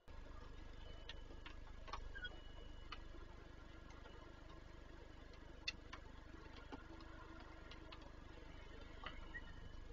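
Steady low electrical hum from the nest-box webcam's microphone, with sparse, irregular sharp clicks and ticks over it, the loudest just before the middle.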